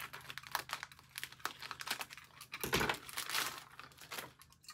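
Plastic wrapping crinkling and crackling in irregular bursts as it is handled and pulled open, dying away near the end.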